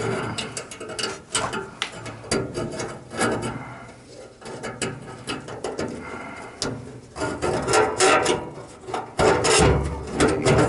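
Irregular clicks, scrapes and metal clatter as furnace parts are handled and fitted back in place, with a heavier clunk about a second before the end.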